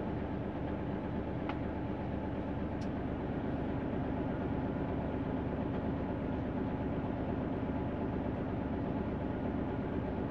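Diesel engine of a semi-trailer tractor running steadily, heard from inside the cab. Two faint clicks come through, one about a second and a half in and another near three seconds.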